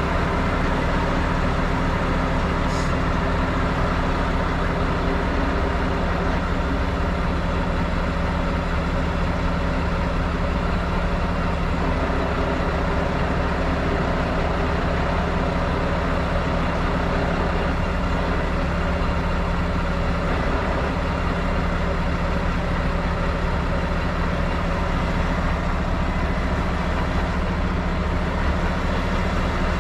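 Heavy wrecker's diesel engine running steadily, a constant low drone without changes in speed.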